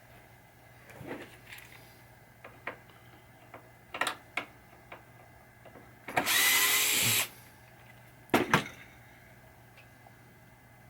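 Cordless screwdriver or drill running briefly, about a second, driving a screw on a pinball playfield. Around it come small clicks and knocks of screws and tools being handled and set down, with two sharper knocks shortly after the driver stops.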